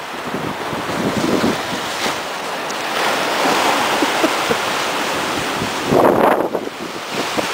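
Sea surf washing and breaking against a rocky shore ledge, with wind buffeting the microphone; a bigger surge of water comes about six seconds in.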